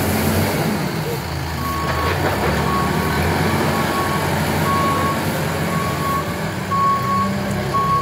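Tata Hitachi Shinrai Prime backhoe loader's diesel engine running steadily while its reversing alarm sounds a series of high beeps, about two a second, starting about one and a half seconds in as the machine backs away.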